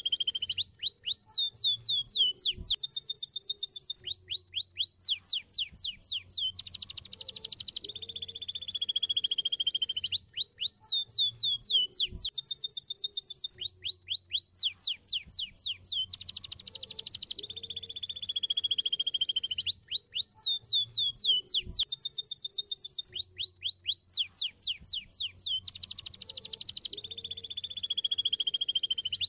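Domestic canary singing a long, fast song: rapid trills and runs of quick repeated notes alternate with long sliding two-pitched whistles. The same sequence comes round about every nine seconds.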